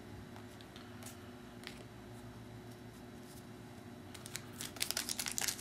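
Faint ticks of trading cards being handled, then about four seconds in, a foil Topps UFC trading-card pack wrapper crinkling as it is picked up, the crackle growing louder.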